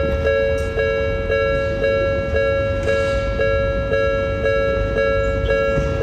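Japanese level crossing's electronic warning bell ringing its steady two-tone clang, about two strikes a second, over a low rumble.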